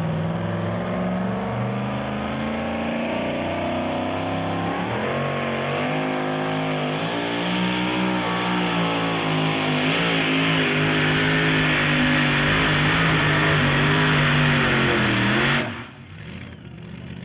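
Supercharged engine of a two-wheel-drive pulling truck at full throttle, dragging the weight-transfer sled. Its pitch climbs and wavers, then the sound drops away suddenly near the end.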